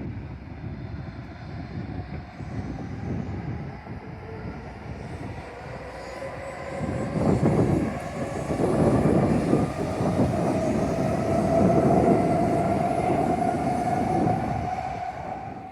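JR Kyushu YC1 series hybrid diesel railcar passing close by, its wheels clattering on the rails. It grows loud about halfway through and stays loud with a steady whine before fading near the end.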